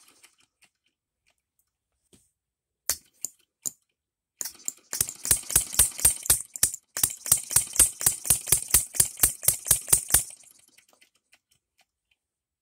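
Small model three-stroke gasoline engine with buzz-coil ignition: a few separate clicks, then it fires in an even, rapid popping beat of about five pops a second for some six seconds before stopping.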